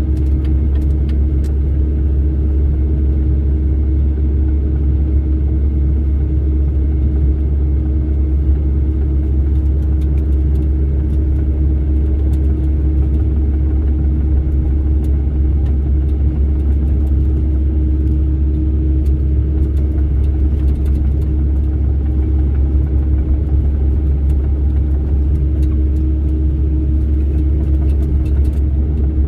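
Excavator's diesel engine running steadily: a constant deep rumble with a steady hum above it, unchanging throughout.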